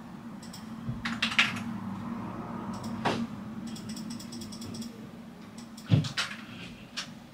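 Typing on a computer keyboard: scattered keystrokes with a few louder clacks and a short run of quick light taps, over a steady low hum.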